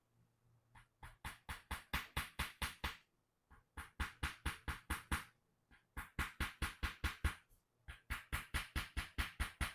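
Four runs of rapid, even taps, about six a second, with short pauses between the runs. The taps are a mallet striking a wedge in golta (bone-tapping hammer therapy) during a Korean chuna spinal correction.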